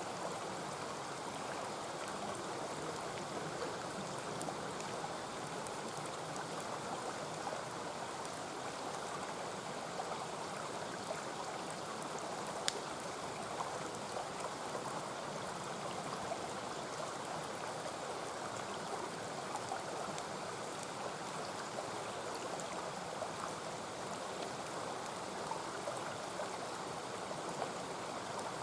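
Mountain stream rushing steadily, with a few faint sharp clicks scattered through it.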